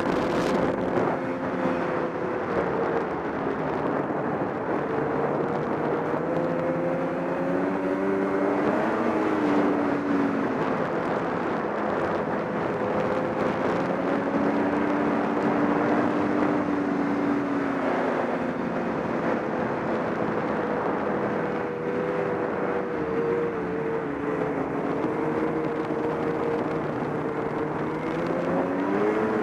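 Snowmobile engine running at trail speed, its pitch rising and falling gently as the throttle changes, over a steady rushing noise of travel.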